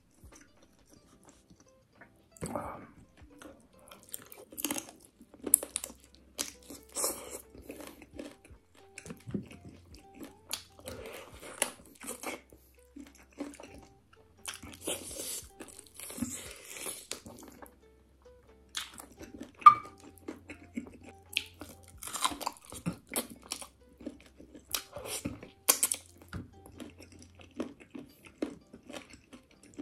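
Close-miked chewing and biting of spicy chicken: wet mouth sounds and crunching, with many irregular sharp clicks and crackles, starting about two and a half seconds in.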